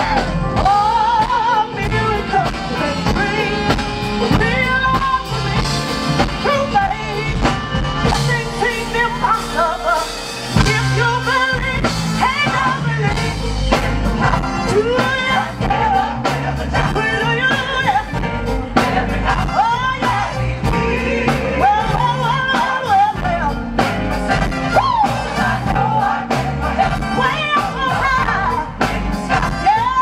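Live gospel music: a woman lead singer singing over a gospel choir and a band with drum kit, amplified through a stage sound system.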